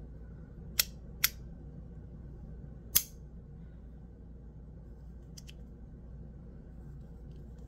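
Titanium magnetic fidget slider clicking as it is worked by hand: three sharp clicks in the first three seconds, the third the loudest, and a fainter click about five and a half seconds in.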